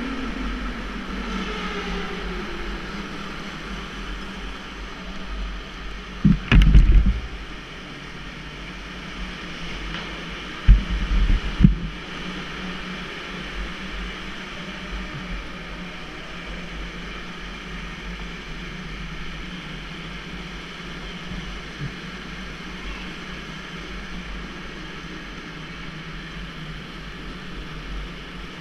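Electric go-kart running hard, heard from the driver's seat: a steady motor whine with tyre and wind noise, the whine gliding down in pitch near the start. Two clusters of short, loud, low thumps, about six and eleven seconds in.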